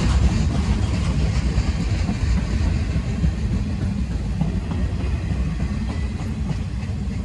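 Freight train flatcars rolling past over the rails: a steady heavy rumble of steel wheels on track, gradually getting a little quieter.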